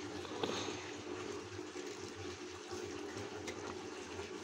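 A thin stream of liquid poured from a steel pot onto a crumbled mixture in a metal bowl while hands knead it through. It makes a soft, steady pouring sound with a few faint ticks.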